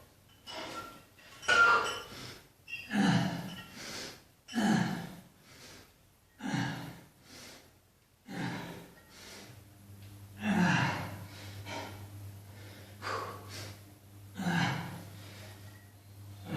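A man breathing hard and exhaling forcefully in gasps, one breath every one and a half to two seconds, with the effort of weight-training reps. A low steady hum comes in about halfway through.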